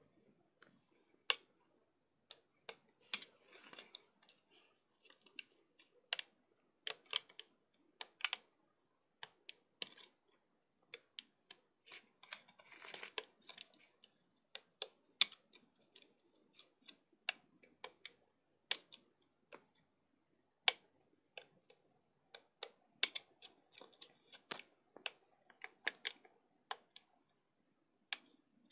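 Plastic band hook clicking and tapping against the clear plastic pegs of a Bandaloom while rubber bands are looped over them: irregular sharp clicks, about one or two a second, with brief soft rustling now and then.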